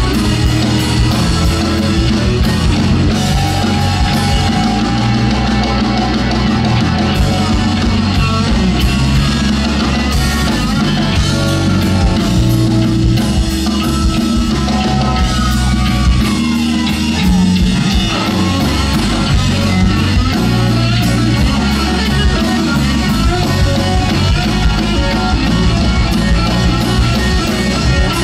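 Live blues-rock trio of electric guitar, bass guitar and drum kit playing loudly through a club PA, with bent lead-guitar notes in the middle stretch.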